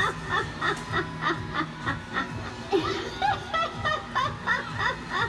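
Halloween animatronic of a hanging upside-down clown girl playing its recorded voice: a string of short giggling laughs, about three a second, over a creepy music bed.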